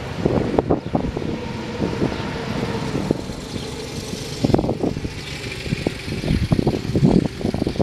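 John Deere 208 garden tractor's single-cylinder Kohler engine running at full throttle while the tractor drives in fourth gear, with frequent knocks and rattles throughout.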